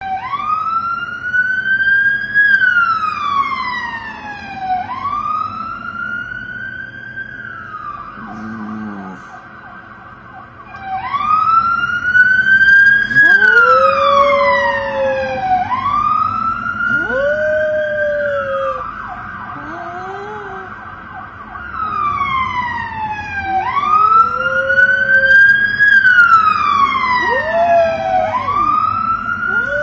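Emergency-vehicle siren wailing, slowly rising and falling in pitch about every five seconds, with a Boston terrier howling along. The dog's lower-pitched howls come in repeatedly from about halfway through.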